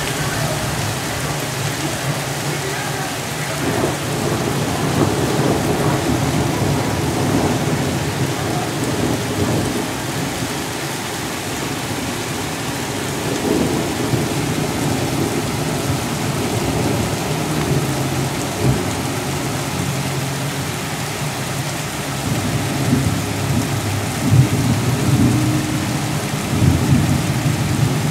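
Heavy rain pouring in a thunderstorm, with a steady low thunder rumble underneath. There are a few sharper knocks in the last few seconds.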